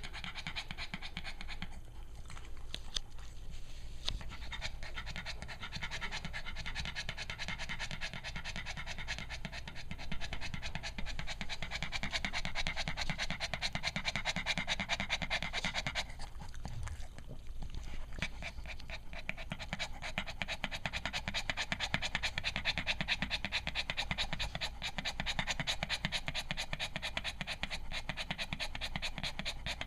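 Cavalier King Charles Spaniel bitch panting rapidly and steadily while nursing her newborn litter, breaking off briefly twice. The panting follows giving birth and is normal for a new mother, as the owner explains.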